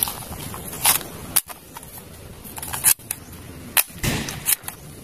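Plastic toy pistol clicking and snapping as its mechanism and magazine are worked by hand: about half a dozen sharp clicks spread unevenly, the loudest a little after four seconds in.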